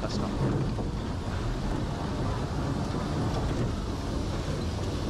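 Bumper cars driving around the arena floor: a steady low rumble of their motors and rolling wheels.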